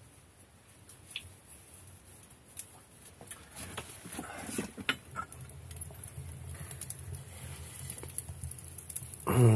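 Scattered light clicks and knocks of handling as work gloves are pulled on and the firebox door of a brick wood stove is opened on a burning wood fire, with a low rumble growing in the second half.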